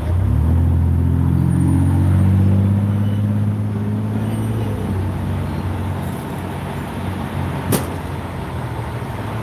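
A large vehicle's engine running close by, loud at the start with its pitch shifting slightly, then fading after about five seconds. A single sharp click comes near the end.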